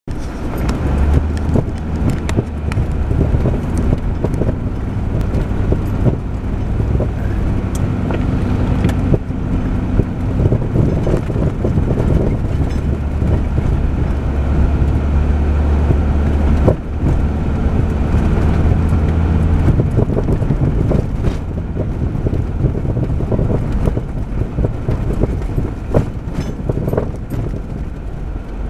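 Inside the cab of a 1998 Jeep Grand Cherokee 5.9, its 5.9-litre V8 running with a low, steady hum while driving slowly over a rough sandy track. Scattered knocks and rattles come from the body and suspension over the bumps.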